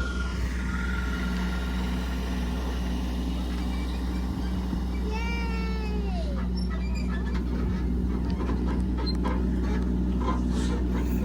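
A single meow-like animal call about five seconds in, falling in pitch over about a second, over a steady low hum, with scattered light clicks later.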